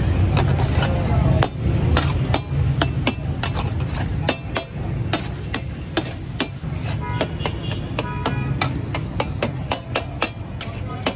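Metal spatulas striking and scraping an iron tawa griddle, irregular clanging strikes several a second, some ringing briefly, over a steady low rumble.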